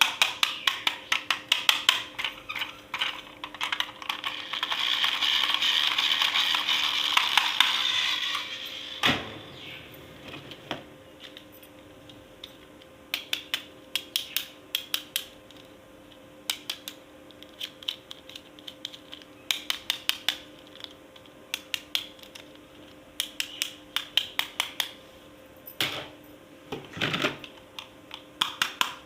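Plastic toys and their packaging being handled: quick clusters of sharp clicks and taps, with a few seconds of steady rustling about four to eight seconds in.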